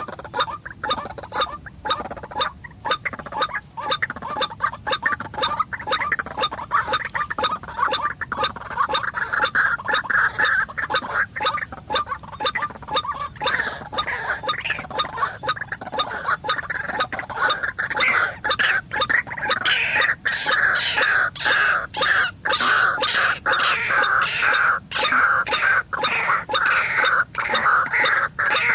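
White-breasted waterhen calling: a continuous run of rapidly repeated harsh notes, stronger in the second half. This is the 'ruak-ruak' call used to lure the birds to the trap.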